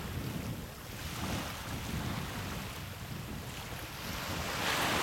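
Wind buffeting the microphone over the wash of surf on a sandy beach. Near the end a louder hiss swells up.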